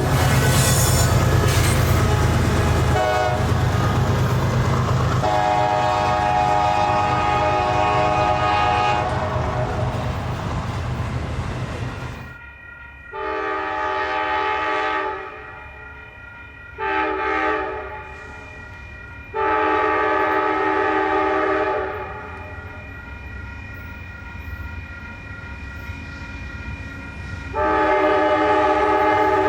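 Nathan Airchime K5LA five-chime locomotive horn. It sounds for about the first ten seconds over the heavy rumble and wheel clatter of a passing train. Then the rumble cuts off and the horn sounds in separate blasts: long, short, long, and another long one begins near the end.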